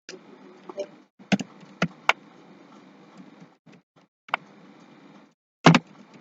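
Computer keyboard keys clicking in a few scattered, irregular taps as a command is typed, over a faint steady hiss.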